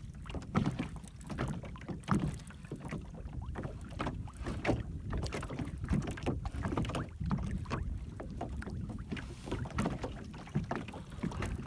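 Small waves lapping and slapping against the hull of an anchored jon boat, in irregular knocks, over a steady low rumble of wind on the microphone.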